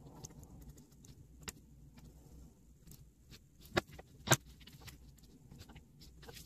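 X-Acto craft knife scratching and ticking through sticker paper on a plastic cutting board, with the rustle of the sheet being handled. About four seconds in come two sharp clicks half a second apart, the loudest sounds.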